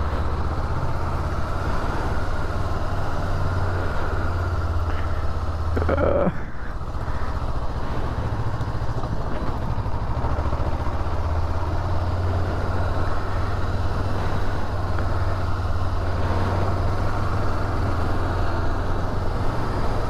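Honda 400X motorcycle's parallel-twin engine running steadily under way, with wind and road noise. The engine note shifts briefly about six seconds in.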